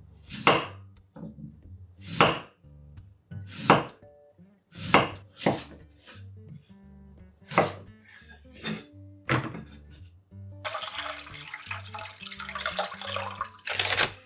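Chef's knife chopping an onion on an end-grain wooden cutting board: about seven sharp knocks a second or two apart. Near the end, plastic packaging crinkles for a few seconds.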